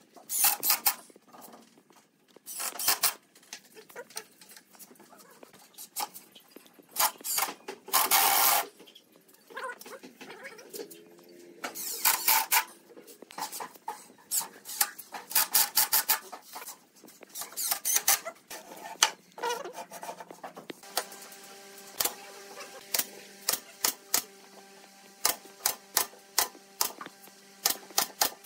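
Cordless impact driver rattling in short bursts, several times, as it drives screws into a pine frame. About two-thirds through, a pneumatic brad nailer starts firing a quick run of sharp shots into the top panel over a steady hum.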